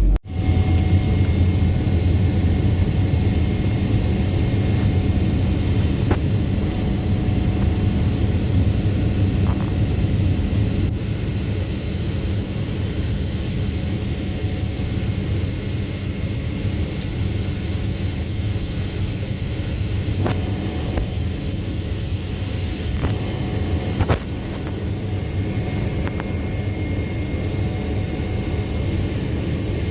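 Jet airliner cabin noise: a steady low drone from the engines and airflow, with a faint steady whine over it and a few small clicks.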